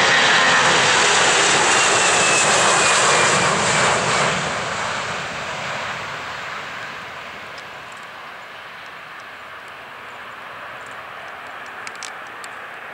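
Four-engine Airbus A340 jet airliner at takeoff thrust: a loud, even jet roar with a faint falling whine as it passes on the takeoff roll. From about four seconds in the roar fades steadily as the airliner lifts off and climbs away.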